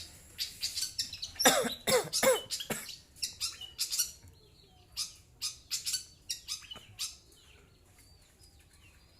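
Long-tailed shrike (cendet) calling in a quick series of short rasping notes, with a few louder calls sliding down in pitch about one and a half to two and a half seconds in; it stops about seven seconds in.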